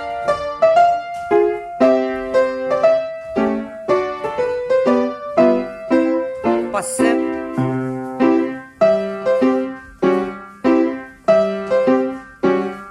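Piano accompaniment for a ballet class: a rhythmic tune with evenly spaced chords and melody notes.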